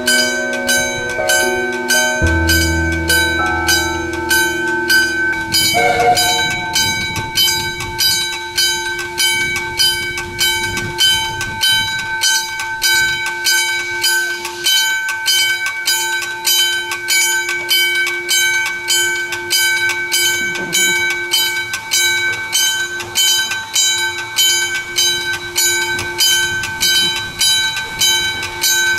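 Ng15 two-foot-gauge steam locomotive under way, its exhaust beating evenly at about two chuffs a second. Several held tones sound over it, changing pitch a few times in the first six seconds and then staying steady.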